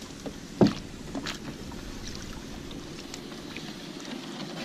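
Small wooden-decked boat on flooded paddy water: one sharp knock on the boat about half a second in, a few lighter taps, then a steady low hum with water noise as the boat is poled along.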